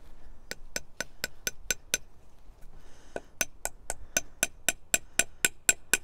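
Hammer tapping a wooden dowel into a hole drilled in a birch log, in quick, even taps about four a second. A run of about seven taps, a pause of about a second, then a steady run of taps again.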